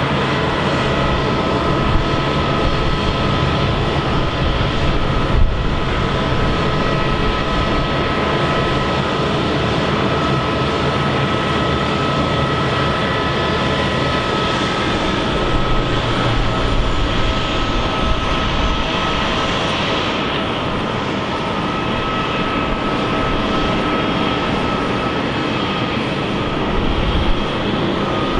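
Airbus A319's IAE V2500 jet engines running steadily: a broad rushing noise with a thin high whine held at one pitch.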